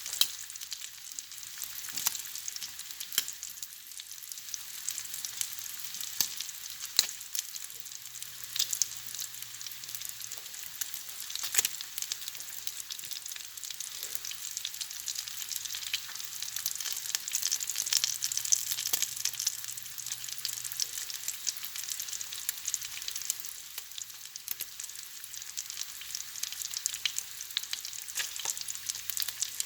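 Bacon sizzling as it fries in a pan: a steady hiss of spitting fat with frequent sharp pops.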